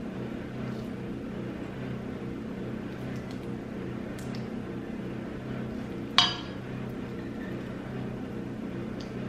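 A single sharp, ringing clink about six seconds in, a hard object striking the slime-mixing bowl, over a steady low hum.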